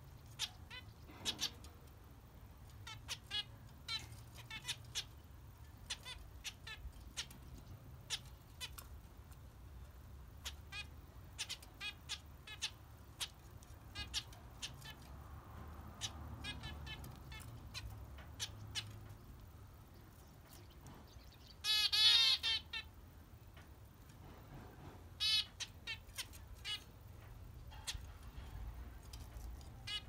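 Caged zebra finches calling: short, nasal beeping calls scattered throughout, with a louder, denser run of calls lasting about a second about two-thirds of the way in.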